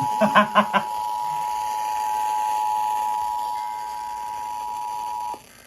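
Emergency Alert System attention signal: the steady two-tone alarm (853 and 960 Hz sounded together), cutting off suddenly about five seconds in.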